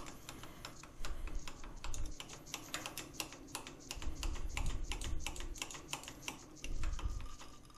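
Lathe tailstock handwheel being cranked to wind the quill out: a quick, uneven run of light mechanical clicks with a few dull knocks.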